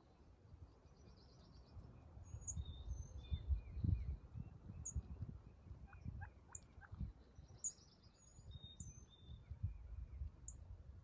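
Small songbirds chirping and trilling, short high calls every second or so, over a low uneven rumble from wind or handling noise on the microphone.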